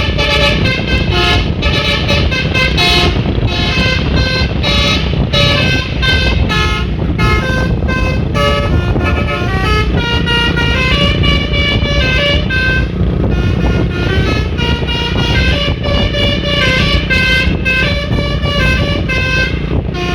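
Bus telolet horn, a set of electric air horns, playing a fast melody note by note without a break, over a steady low engine rumble.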